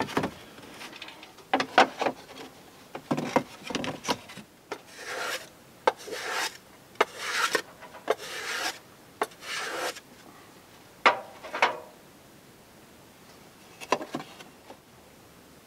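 Block plane shaving the edge of a western red cedar shingle in about six short scraping strokes, with sharp wooden knocks and clicks as the shingle is handled and test-fitted against the wall before and after.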